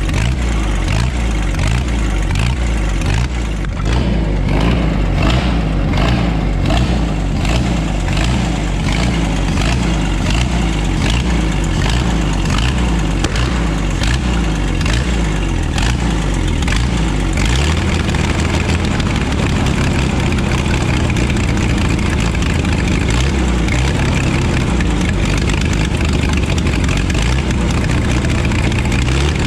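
Power Horse farm tractor's engine running with its speed surging up and down, a lopey, hunting rhythm, settling somewhat steadier a little past halfway. The hunting comes from the fuel pump putting out too much pressure: fuel gets past the carburettor's needle and seat, and the governor overcompensates.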